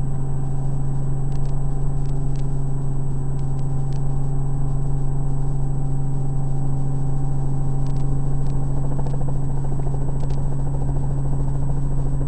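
Helicopter engine and rotor drone heard inside the cockpit, steady and loud with a low hum and a higher whine, during the final approach and touchdown on a helipad. The higher tone fades out about eight and a half seconds in.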